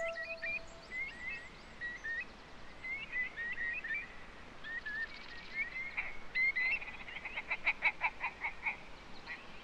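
Frogs calling: many short chirps overlapping, with a rapid pulsed call of about five pulses a second in the second half.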